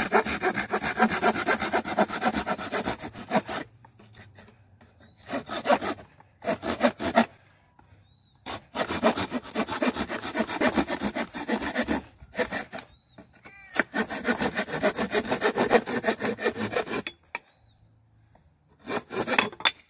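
Silky Pocket Boy folding saw cutting through a thin pine pallet board, fast back-and-forth strokes in several runs with short pauses between.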